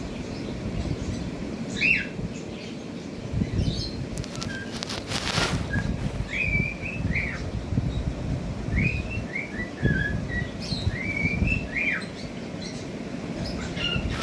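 Cockatiels chirping and whistling in short calls that glide up and down, over a steady low rumble of background noise. A brief rustle comes about five seconds in.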